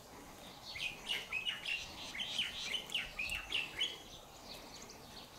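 A bird calling in a rapid run of short, falling chirps, lasting about three seconds and starting near the first second.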